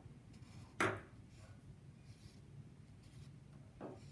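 Black felt-tip marker scratching on paper as stripes are colored in, with a sharp stroke about a second in and another near the end.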